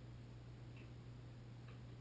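Two faint, light clicks about a second apart, from a hand tool working against metal parts inside a Moen Posi-Temp shower valve body, over a steady low hum.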